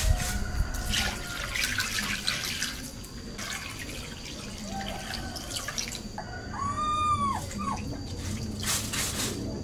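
Water poured from a plastic scoop into a metal pot of cut fish, splashing and trickling. About seven seconds in, a short high whine rises and falls over about a second.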